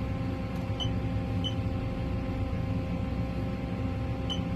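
Steady low electrical hum of an ultrasound scanner and room, with three short high beeps from the scanner's console: two about a second in, half a second apart, and one near the end.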